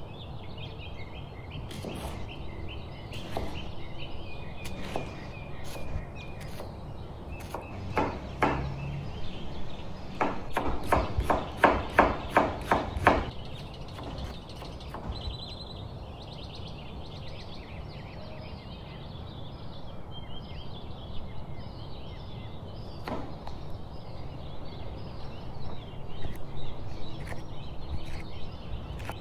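Chef's knife chopping onion and green pepper on a plastic cutting board: sharp knocks of the blade on the board, with a quick, loud run of about three chops a second a third of the way in, and sparser cuts after.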